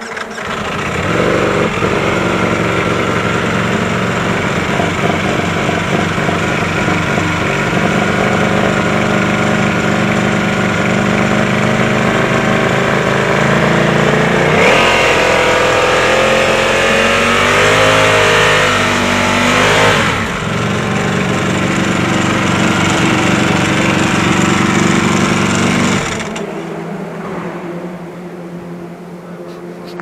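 Race superbike's four-cylinder engine revved up from idle and held at a steady raised rpm for a scrutineering exhaust noise test. About halfway through it is pushed higher, its pitch rising and wavering for several seconds. It is then held steady again and drops back to idle near the end.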